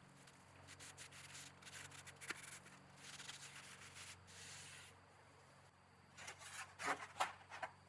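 Cloth rag rubbing satin wipe-on polyurethane onto the varnished wood of a model kayak, in faint strokes. Near the end come a few light knocks, the loudest sounds here.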